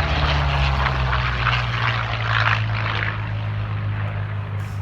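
F4U Corsair's propeller and big radial piston engine as the fighter flies past, a deep steady engine drone under a rushing propeller noise that eases off after about three seconds.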